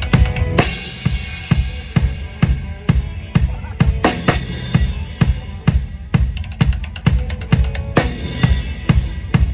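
Drum kit played in a steady groove during a band sound check: even bass drum and snare strokes, with a cymbal crash about half a second in and another near the end.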